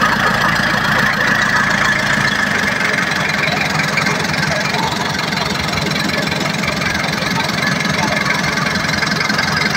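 Fishing boat's inboard engine running steadily under way, a fast, even chugging; the deepest part of the rumble drops away about two and a half seconds in.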